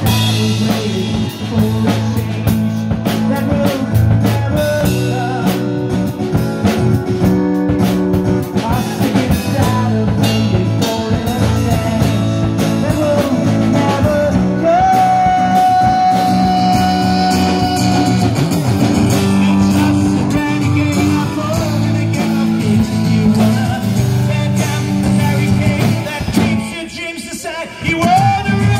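Live band music: a strummed acoustic-electric guitar and a Ludwig drum kit with a man singing, including one long held note in the middle. Near the end the music drops out briefly before coming back in.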